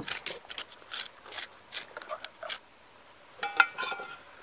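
Tableware being handled: light clicks and knocks of plates, utensils and bottles on a wooden table, with one sharper knock that rings briefly about three and a half seconds in.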